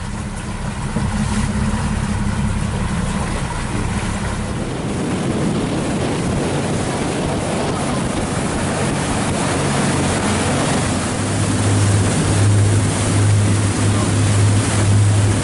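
Motorboat engine running steadily underway, with wind and water noise over it; the low engine hum grows stronger in the second half.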